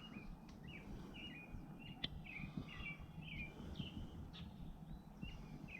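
A songbird calling repeatedly, short chirping notes about two a second, faint over low background noise.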